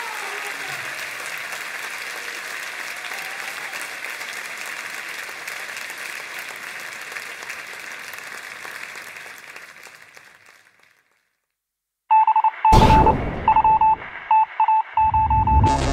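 Audience applauding, dying away to silence about ten seconds in. Then an electronic logo sting starts: short beeps repeated at one pitch, two sharp whooshing hits, and a deep throbbing bass near the end.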